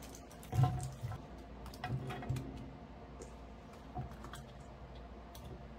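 Raw potato wedges tumbling out of a metal bowl into a baking pan: a few soft thuds and clatters, the loudest about half a second in, then more spread over the next few seconds.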